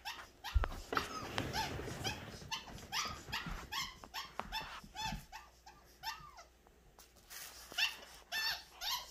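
Red heeler (Australian cattle dog) puppy yipping at play: short, high, arched yips, several a second, with a pause of a couple of seconds before a last run near the end.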